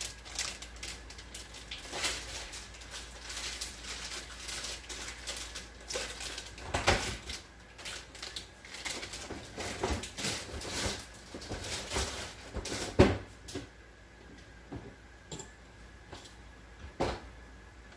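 Kitchen handling noise: scattered clicks, taps and knocks of utensils and dishes being moved on a counter. A few sharper knocks stand out, about 7 and 13 seconds in and again near the end.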